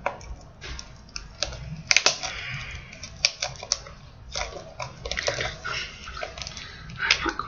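Fingernails picking and scratching at the plastic shrink-wrap on a small cardboard blind box. It makes irregular sharp clicks and short bursts of cellophane crinkling as the wrap resists coming off.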